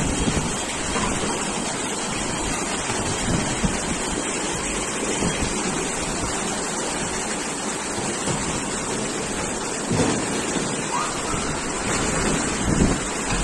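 Floodwater rushing fast down a street as a steady torrent, with a few brief gusts of wind on the microphone.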